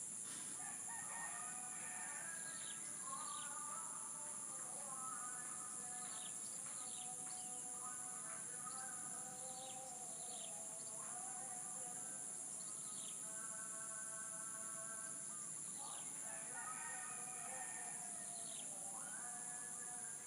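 Several roosters crowing again and again, their crows overlapping one another, with small birds giving short chirps and a steady high drone of crickets behind.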